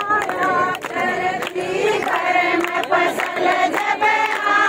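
A group of women singing a rousing song together, with the crowd clapping along in time at about two claps a second.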